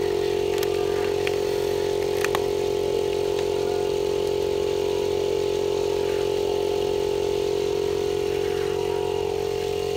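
Air compressor running with a steady, unchanging hum, holding air pressure in newly laid galvanised gas pipes for a soapy-water leak test. A few light clicks sound in the first couple of seconds.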